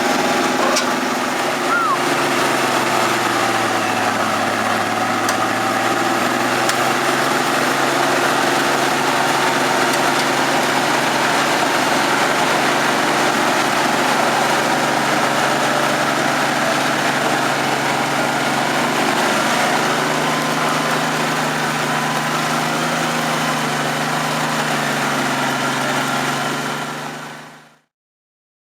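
Diesel engine running near idle, its pitch dipping slightly and later rising a little, with voices in the background; the sound fades out near the end.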